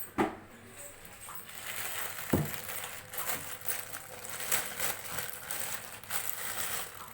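Kitchen handling sounds: two sharp knocks of utensils, the second about two seconds in, then a stretch of crackly rustling with many small clicks.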